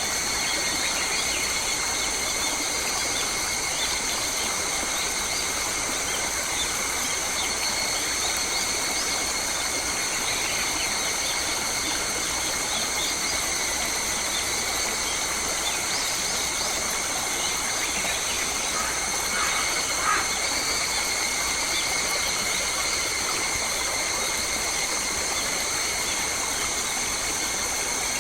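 Bush ambience: an even hiss of running water under a steady high-pitched drone held on several pitches at once, with a few short bird calls and a brief louder chirp about twenty seconds in.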